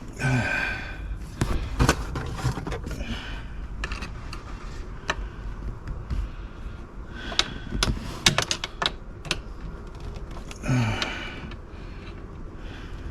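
Irregular clicks, taps and knocks of small hard parts being handled and fitted by hand, with a short falling grunt near the start and another about eleven seconds in.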